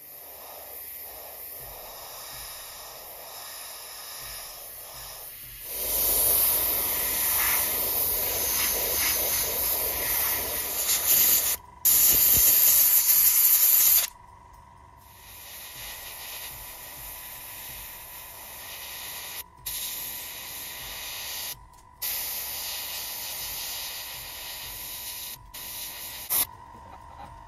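Gravity-feed airbrush spraying paint: a steady hiss of air that breaks off abruptly several times and starts again, loudest for several seconds in the first half.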